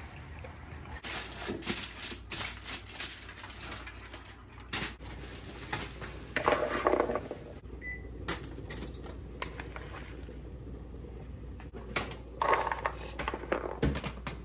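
Food prep in a kitchen: diced vegetables spooned and dropped into aluminium foil packets, with foil crinkling and spoon clicks, and two longer rustles about halfway through and near the end, over a steady low hum.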